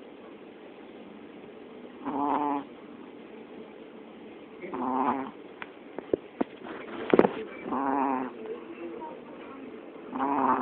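Sleeping chihuahua snoring: four pitched, buzzing snores, one every two to three seconds. A few faint clicks come just past the middle, and a single sharp click about seven seconds in is the loudest moment.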